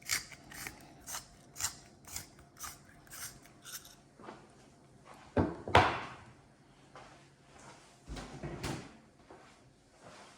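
Pepper grinder being twisted, making sharp crunching clicks about twice a second for the first four seconds. After that come two louder knocks and rustles of kitchen handling, about six and nine seconds in.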